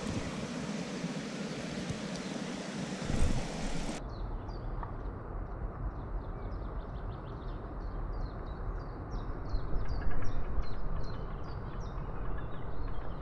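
A steady rushing noise with a thump about three seconds in. Then, from about four seconds in, small birds sing short, quickly repeated falling chirps over a low rumble.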